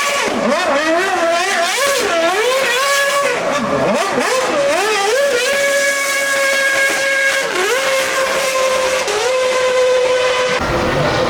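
Formula 1 car's engine revving, its pitch swinging rapidly up and down, then holding a steady high note for a few seconds before dropping. A low rumble joins near the end.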